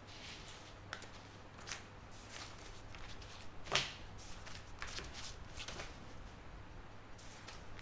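Irregular soft rustling and light clicks, with one sharper click about four seconds in, over a low steady hum.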